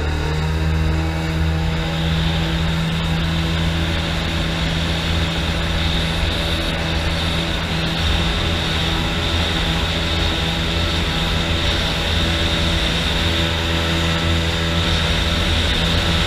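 Homemade jet boat running steadily under power: a constant low engine drone with a high whine that builds in over the first couple of seconds and then holds.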